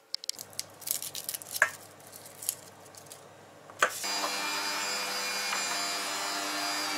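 Small clicks and rustles of garlic cloves being handled, then a click about four seconds in as an electric meat grinder is switched on. Its motor runs with a steady hum while garlic cloves are pushed down the feed tube to be ground into the mince.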